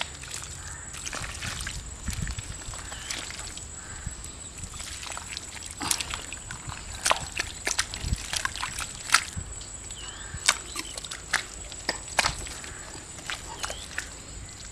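Bare hands squelching and slapping wet mud, packing it around the mouth of a buried clay pot trap. Sharp wet slaps come irregularly, most of them in the middle stretch.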